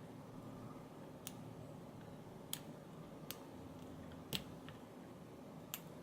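Faint, scattered clicks of a hook pick working the pin stacks of a Master Lock Pro Series 6835 padlock under light tension during single-pin picking: about six sharp ticks at irregular intervals, the loudest a little past halfway.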